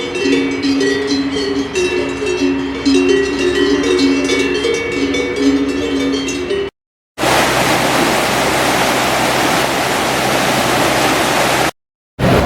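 Cowbells clanking and ringing in a mix of overlapping pitches for about six and a half seconds. After a sudden cut, a steady rushing noise with a low hum takes over.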